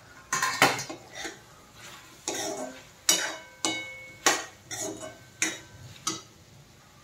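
Steel spoon scraping and knocking against a steel kadhai as cubed pumpkin bhaji is stirred: about ten strokes, each with a short metallic ring, stopping about a second before the end.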